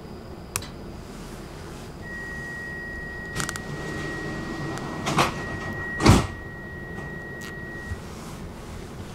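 Stockholm metro train's sliding doors closing: a steady high warning tone sounds for about six seconds, with a few knocks and then a heavy thump about six seconds in as the doors shut.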